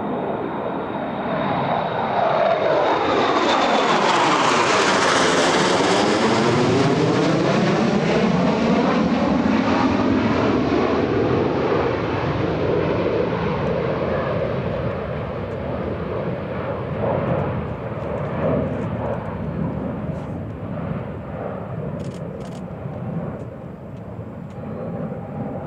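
Two Boeing EA-18G Growlers with twin General Electric F414 turbofans passing overhead: a high whine that drops in pitch as the jets go by, the sound loudest from about three to eleven seconds in and then slowly fading as they fly away.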